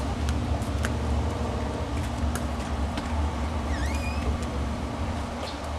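Steady low rumble with a few faint clicks, and a short chirp about four seconds in.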